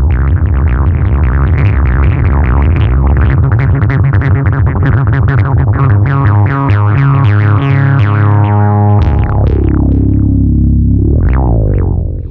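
Synthesizer-led background music with a heavy bass line, changing in the bass about nine seconds in and cutting off abruptly near the end.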